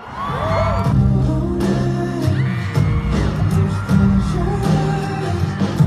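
Loud live pop music kicking in with a heavy, steady bass line and singing, while the crowd whoops and screams over the opening second.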